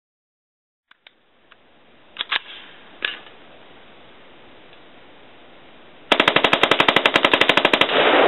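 A few clicks, then a Ruger AC556 select-fire .223 rifle fitted with a muzzle brake fires one full-auto burst of about two dozen rounds at roughly thirteen shots a second. The burst is followed by a loud rolling echo.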